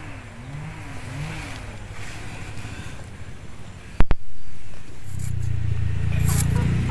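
A faint background, then a sharp double click about four seconds in. After that a steady low hum runs, and a blade scrapes the skin off a yam in a few short strokes near the end.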